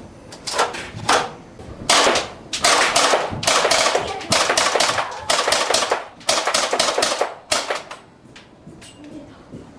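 Stock gunshot sound effects: a series of sharp pistol-style shots, some single and some in quick runs of two or three, stopping about eight seconds in and followed by a few faint clicks.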